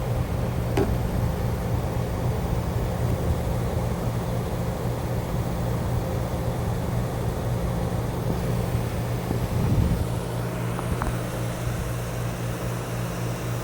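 1964-65 Fedders 8,000 BTU window air conditioner running: steady blowing air over a low compressor hum, with a couple of faint ticks.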